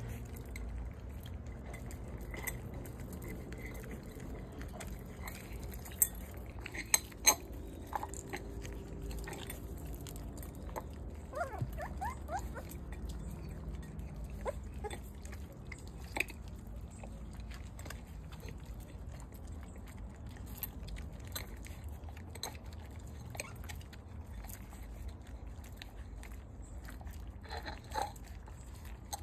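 One-month-old puppies chewing and lapping food from a shared bowl, with scattered clicks against the bowl, a few sharper clicks, and some brief high squeaks.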